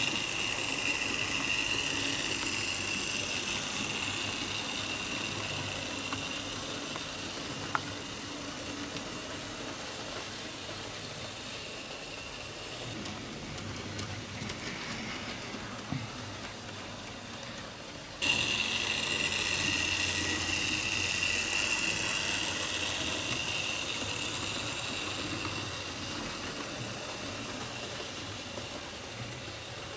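HO-scale model steam train running along the layout's track: a steady high motor whine over rolling rail noise, fading as the train moves away. About 18 seconds in it comes back abruptly loud and fades again.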